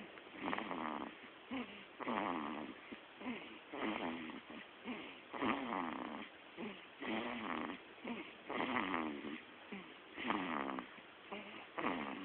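A baby snoring like an old man, one snore with each breath, about every second and a half.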